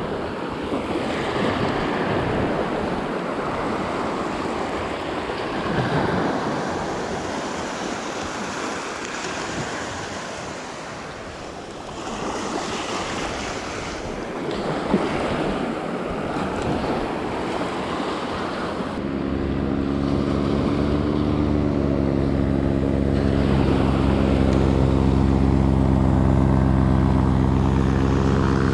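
Rushing wind-and-surf noise, then, about two-thirds of the way through, a steady engine drone sets in abruptly and carries on at an even pitch.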